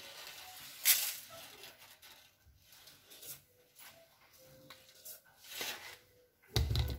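Kitchen handling sounds as sugar is spooned into a saucepan of milk: a sharp click about a second in, a few faint scrapes and taps, and a dull low bump near the end.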